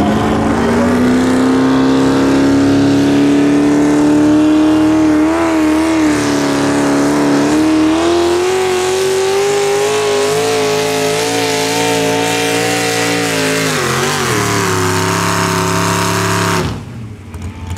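Hot rod pulling tractor's engine running at high revs through twin open stacks under full load, its pitch climbing steadily through the run. The note wavers briefly about five to eight seconds in, then drops steeply about fourteen seconds in and holds lower until the sound cuts off suddenly near the end.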